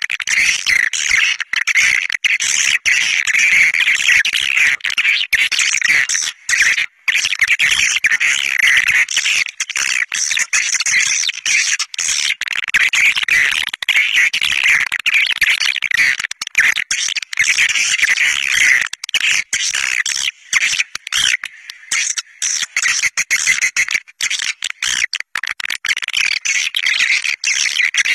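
Swiftlet caller recording: a flock of swiftlets twittering in dense, rapid chirps, with short gaps about seven seconds in and around twenty seconds in. It is the lure call that swiftlet farmers play to draw swiftlets into a nesting house.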